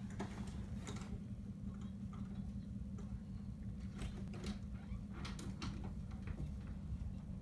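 Truck engine rumbling low and steady, with scattered irregular clicks and ticks over it, heard through a security camera's microphone.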